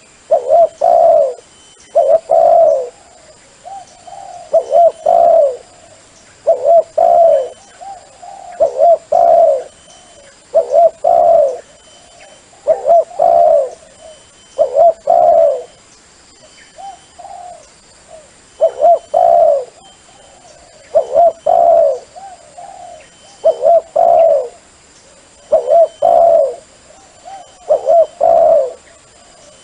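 Dove cooing: short phrases of a few quick, rolling coos, repeated about every two seconds, the kind of call played to lure wild doves.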